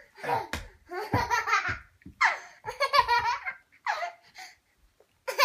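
A young child laughing hard in repeated bursts, some breaking into quick ha-ha-ha pulses.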